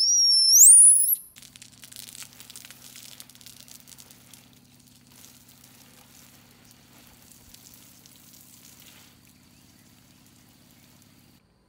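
A baby monkey gives a loud, high-pitched squeal that rises in pitch for about a second. It is followed by faint crackling that dies away, over a low steady hum that stops near the end.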